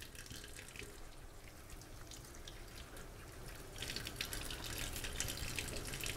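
Kitchen tap turned on about four seconds in, water running and splashing into the sink, growing louder toward the end.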